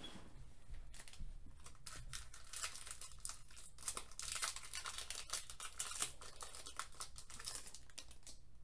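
A Pokémon trading card booster pack's foil wrapper being crinkled and torn open by hand: a rapid crackling of small sharp clicks that is busiest in the middle and thins out near the end.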